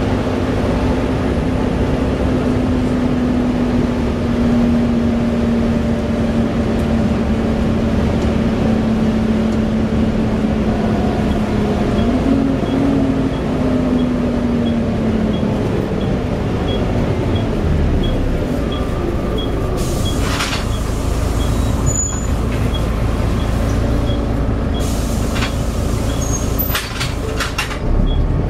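Volvo B7TL double-decker bus on the move, heard from inside: the engine and driveline drone with a steady whine that steps up partway through, then falls away as the bus slows. In the second half a regular ticking and a few short air hisses come in.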